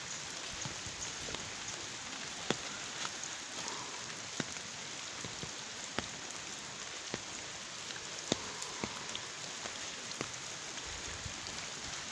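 Steady rain falling on wet ground and foliage, with scattered sharper drops landing close by every second or two.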